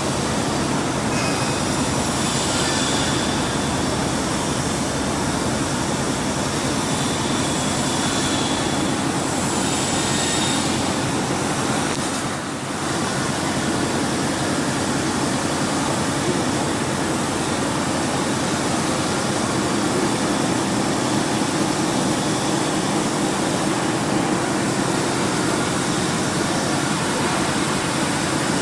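Steady mechanical drone of running machinery, with a brief dip about twelve seconds in.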